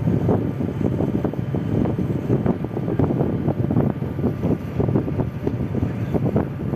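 Wind buffeting the microphone: a rough low rumble that rises and falls in quick gusts.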